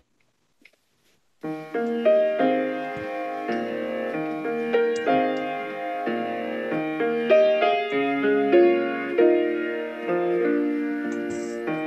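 Solo piano music, playing chords, starts about a second and a half in after a brief silence.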